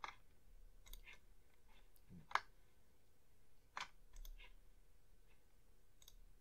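Faint computer mouse clicks, about six separate sharp clicks a second or so apart, the loudest about two and a half seconds in.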